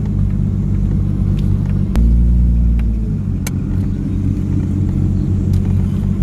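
Nissan 180SX engine and exhaust heard from inside the cabin while creeping along at low speed: a low, steady rumble that swells about two seconds in and eases back about a second later. A few faint clicks sound over it.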